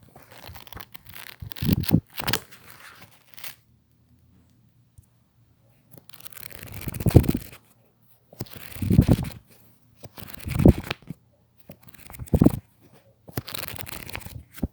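Sheets of paper being torn in a series of separate rips, each lasting up to about a second, with short pauses between them.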